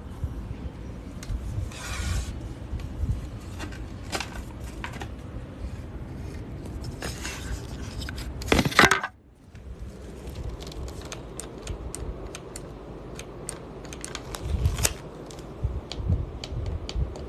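Irregular clicks, knocks and scrapes of hard objects being handled. About nine seconds in, a louder scraping burst cuts off suddenly.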